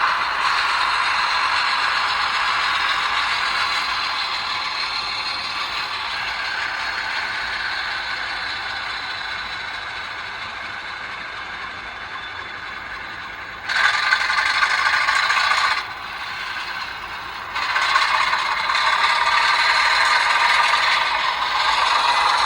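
Sound decoder in an HO-scale Atlas RS1 model locomotive playing a diesel prime mover through small iPhone speakers: a rattly engine sound with almost no bass. It fades slowly, jumps louder about 14 seconds in, drops back about two seconds later, then rises again.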